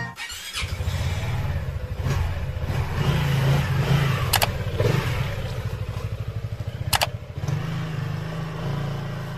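A motor scooter engine running with steady firing pulses. Two sharp clicks come about four and a half and seven seconds in.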